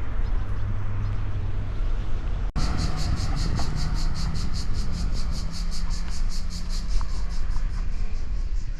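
Cicadas buzzing in a fast, even pulsing rhythm, about six pulses a second, starting suddenly about two and a half seconds in, over a low steady rumble. Before that, a low steady hum.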